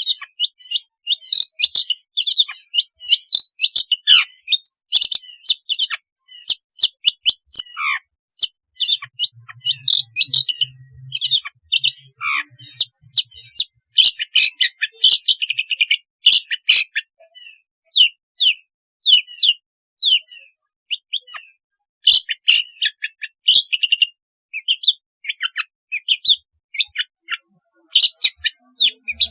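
Long-tailed shrike (cendet) singing a fast, chattering song of short, sharp high notes, some slurring downward, broken by brief pauses.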